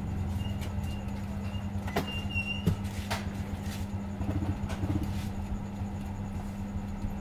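A steady low hum, with a few sharp clicks two to three seconds in.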